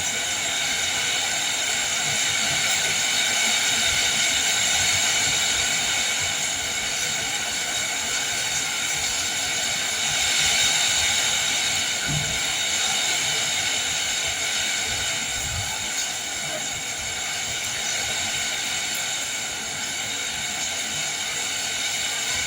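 Steady heavy rain with wind: an even hiss with a couple of brief low thumps midway.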